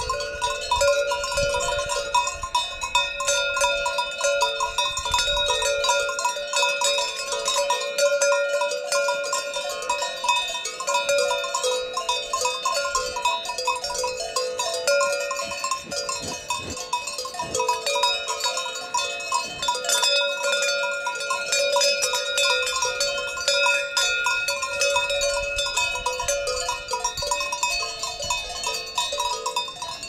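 Many Alpine cowbells worn by a herd of cows clanking continuously, their ringing tones at several pitches overlapping.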